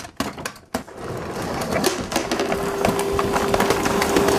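An upright vacuum cleaner switched on: a few knocks, then its motor spins up about a second in and settles into a steady running hum with a constant tone.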